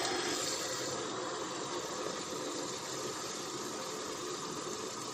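Garden hose running water into a vinyl 30-gallon water bladder, a steady rushing hiss as the bladder fills with ballast water.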